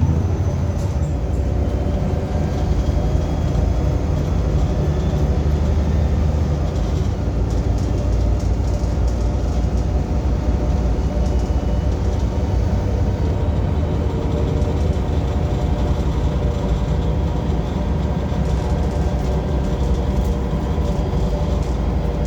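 Transperth bus TP1230 running with a loud, steady low rumble, with the fan off.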